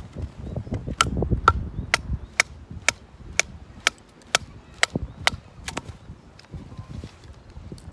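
Firewood being batoned: a wooden baton striking the spine of a knife to drive it through a split, in a steady run of about ten sharp knocks, about two a second.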